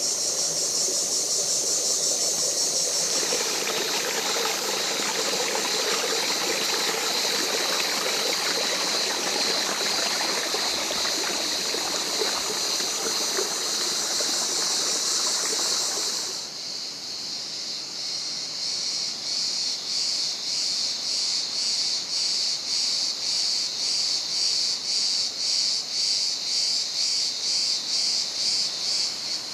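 Cicadas shrilling loudly and steadily, with a shallow stream running over stones underneath from about three seconds in. About halfway through the water sound cuts off and the cicada song goes on alone as a regular pulsing, about one and a half pulses a second.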